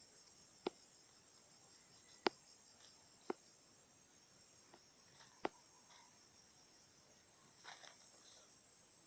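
Faint steady high-pitched chirring of insects such as crickets, broken by four sharp, isolated clicks over the first few seconds and a brief soft rustle near the end.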